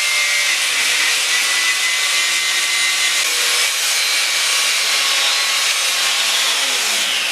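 A power tool's motor running steadily with a harsh, abrasive noise, winding down near the end.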